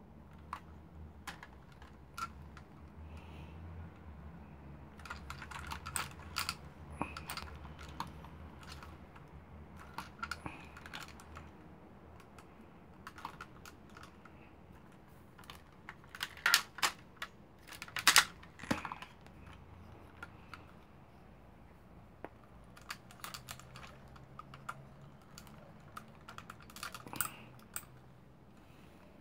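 Transformers Super Ginrai (Optimus Prime) robot toy being handled: irregular clusters of small clicks and taps as its parts and hand-held gun are fitted and moved, loudest about two thirds of the way through.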